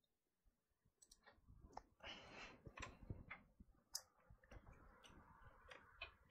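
Faint clicks and handling noise of hands working on the opened laptop and bench equipment: scattered sharp clicks, a busier stretch of handling about two seconds in, and a soft steady rustle near the end.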